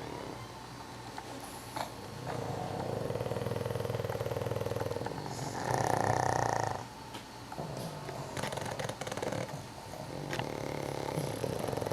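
Several sleeping pugs snoring together in long, buzzing breaths that swell and fade, with one louder snore about halfway through.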